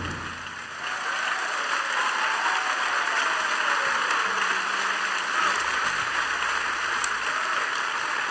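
Audience applauding: a steady, even clapping that builds up about a second in, right after the band's final drum hit.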